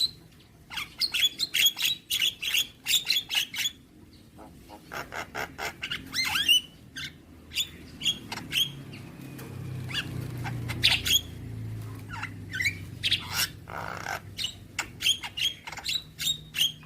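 Javan myna (jalak kebo) singing a fast, chattering song of short harsh notes and quick whistled glides.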